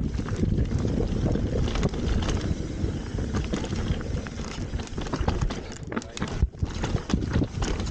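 Mountain bike riding fast down a dirt trail: wind buffeting the camera microphone over tyres on dirt and loose rock, with frequent short clatters from the bike.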